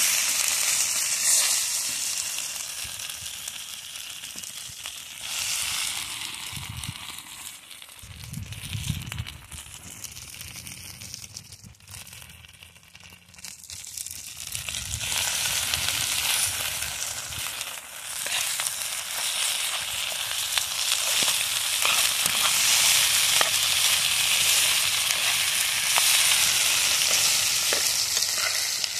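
Rice and meat frying in a skillet over a wood fire, a steady sizzle with a metal spoon stirring it at times. The sizzle dies down for a few seconds around the middle, then rises again.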